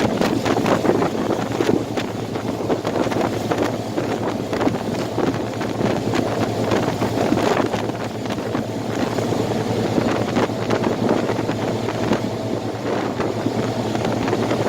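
Work boat under way on twin 60 hp Mercury Command Thrust four-stroke outboards: a steady low motor hum beneath wind buffeting the microphone.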